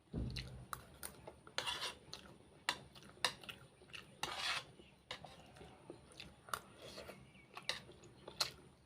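Eating sounds: a utensil clinking and scraping on a plate in sharp, irregular clicks, with chewing. A low thump comes right at the start.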